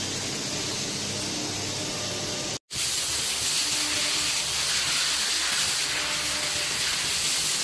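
Steady hiss of flood coolant spraying inside a CNC machining center, broken by a momentary dropout about two and a half seconds in.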